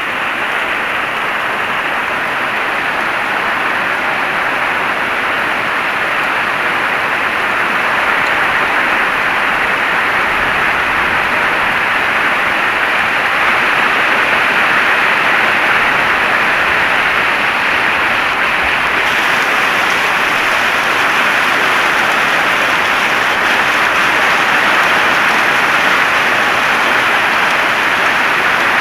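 Heavy rain falling steadily, a dense, even hiss that grows slightly louder part way through.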